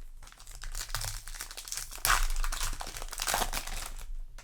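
Foil booster-pack wrapper crinkling as it is handled and torn open, loudest from about two seconds in.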